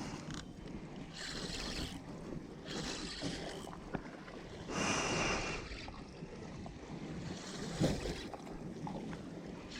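Water washing against a fishing boat's hull, swelling and fading about every one and a half to two seconds, with wind on the microphone. A short knock comes about eight seconds in.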